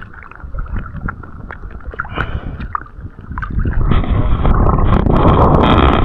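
Water sloshing and splashing around hands as a small fish is worked free of a gill net, with scattered small drips and splashes. About halfway through, a loud, steady rushing noise comes in and holds.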